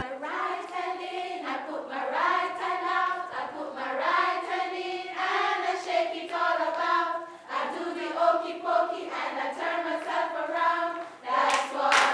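A group of adults singing a song together without instruments, led by a trainer. Near the end, hand claps join in with the singing.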